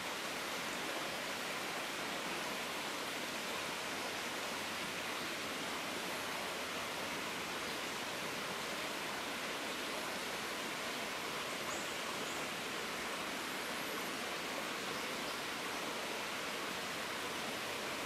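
Steady rushing of running creek water in rainforest, even and unbroken, with a few faint high chirps from around the middle on.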